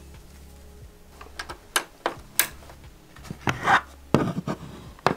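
Cables and plastic electrical panels being handled on a wooden table: scattered clicks and knocks of plastic, with cables rubbing, busiest a little over halfway through.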